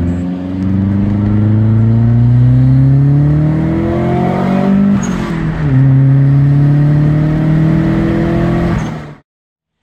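Turbocharged BMW E30 M42 four-cylinder engine accelerating hard under load: its pitch climbs steadily, drops at an upshift about five seconds in, then climbs again before cutting off suddenly near the end.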